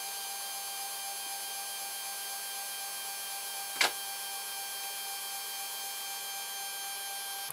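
3D printer's stepper motors whining steadily as it runs its bed-probing routine, with one sharp click about four seconds in.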